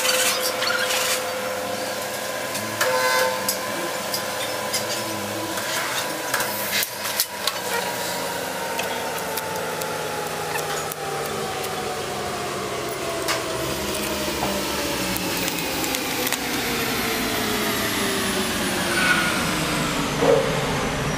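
3D vacuum heat-transfer press machine running with a steady mechanical noise and a tone that slowly falls in pitch through the second half. Several clicks and knocks come from the lid and parts being handled.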